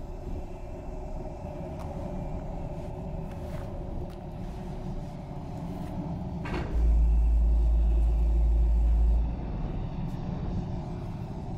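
Low, steady rumbling drone of film sound design. About six and a half seconds in, a click is followed by a much louder deep bass rumble that cuts in suddenly, holds for about two and a half seconds, and cuts off.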